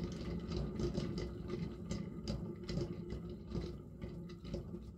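A hand-spun paint-pouring turntable carrying a canvas, running with a low rumble and many small irregular clicks and rattles, slowly dying down as it spins out.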